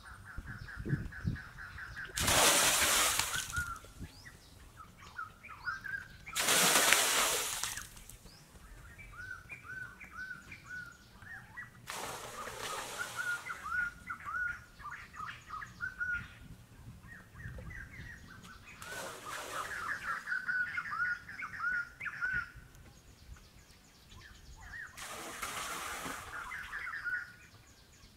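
Water poured from a clay pot splashing into a shallow cement pond, five separate pours each lasting a second or so. Small birds chirp throughout.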